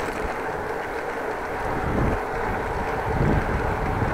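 Wind buffeting the microphone over the tyre and road noise of a bicycle in motion, with a short click right at the start.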